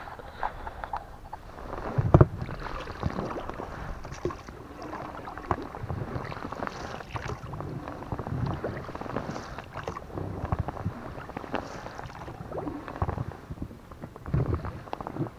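Rowing an inflatable boat: oar strokes with irregular knocks and clatter of the oars and oarlocks against the hull, the loudest a sharp knock about two seconds in and two more near the end.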